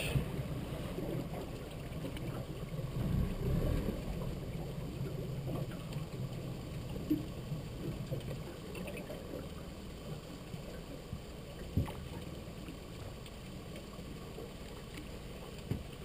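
River water gurgling and lapping against the hull of an aluminium drift boat, a low steady wash, with two light knocks on the boat, one about two-thirds of the way through and one near the end.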